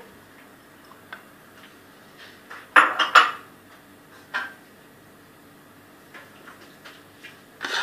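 A metal kitchen utensil clinking and knocking against a cooking pot, with two sharp clatters about three seconds in and a few lighter knocks around them.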